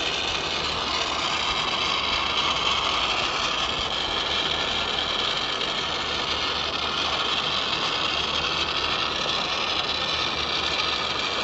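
Steady hiss of an oxy-fuel brazing torch burning while it heats the copper refrigerant joints of a replacement compressor, even and unbroken throughout.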